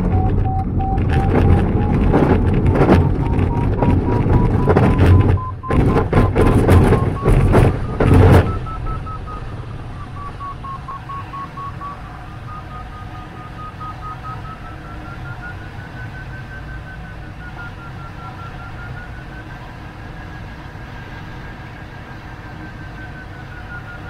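Glider's takeoff roll on grass: loud rumbling and bumping from the wheel and airframe until lift-off about eight seconds in, then a quieter steady rush of air past the cockpit. Throughout, the variometer's audio tone rises slowly in pitch and turns into beeps once the glider is climbing on tow.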